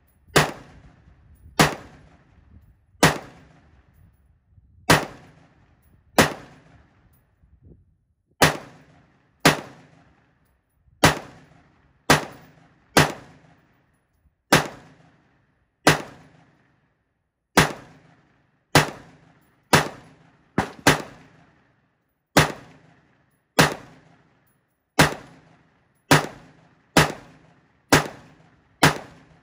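LMT MRP external-piston rifle with a 14.5-inch barrel, unsuppressed, firing 5.56 mm rounds in semi-auto. It fires about two dozen shots at a steady pace of roughly one a second, and each shot trails off in a brief echo. The rifle runs with no stoppages.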